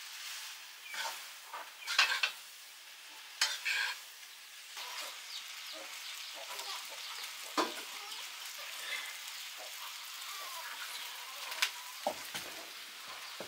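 Food sizzling as it fries in a pan, under a steady hiss, with a utensil scraping and knocking against the pan every few seconds as it is stirred.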